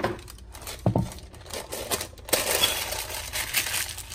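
Wax paper crinkling as it is pressed and folded into a glass baking dish, with a couple of light knocks against the glass near the start.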